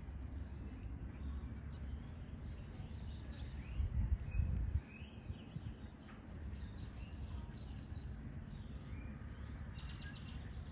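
Outdoor ambience: a low rumble of wind on the microphone, with a louder bump about four seconds in, while small birds chirp here and there and give a quick chattering run near the end.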